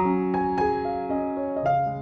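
Background piano music: a melody of single notes struck a few times a second over held lower notes.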